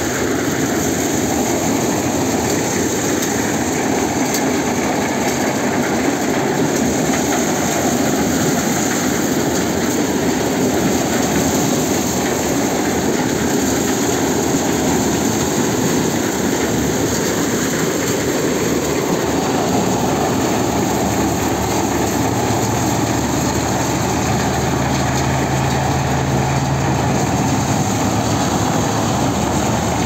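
Farm machinery running steadily during a maize harvest: a dense, even mechanical noise with no pauses, and a low engine hum that grows more prominent in the second half.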